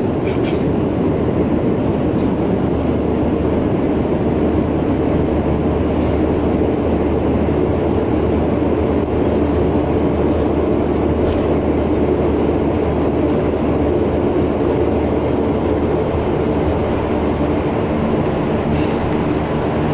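Saab 2000's Rolls-Royce AE 2100A turboprop engines and six-blade propellers running while the airliner taxis, heard inside the cabin as a steady low drone and hum.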